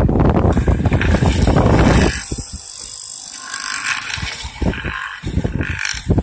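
Wood mortising machine cutting into wood: a loud, rough cutting rattle for about two seconds, then quieter running with a few knocks, and a loud cut again near the end.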